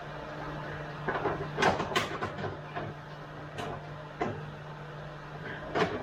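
Irregular metal clunks and knocks from hand work on a skid steer, likely the operator seat being fitted back in, over a steady low hum.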